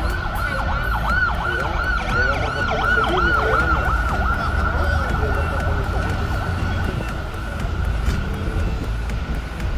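An emergency vehicle's siren in fast yelp, sweeping up and down about three to four times a second, fading away about six seconds in. Under it, a steady high tone and the low rumble of traffic and wind on the open top deck of a moving bus.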